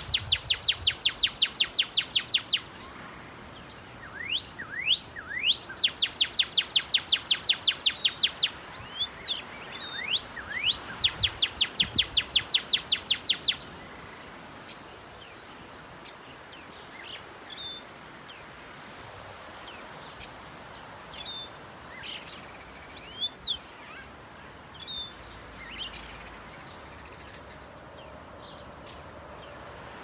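Northern cardinal singing: three runs of rapid repeated whistled notes, each led in by a few rising slurred notes, all in the first half. After that come only scattered single sharp chips.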